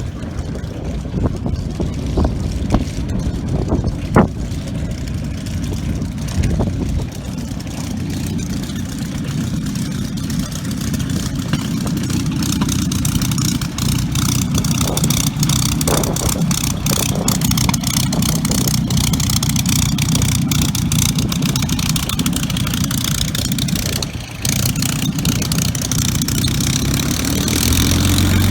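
Aircraft engine noise, steady and low, growing louder toward the end as the aircraft passes.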